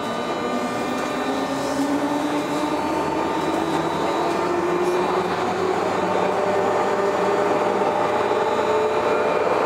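JR 201 series electric train pulling away and accelerating. The traction motor tone rises steadily in pitch and gets louder as it gathers speed, over steady higher whines from the thyristor chopper control.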